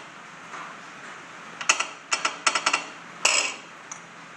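SWAG Off Road bender creaking and clicking under load, in a few sharp clusters from just under two seconds in to past three seconds. The operator puts the groaning down to the follower die running without lube.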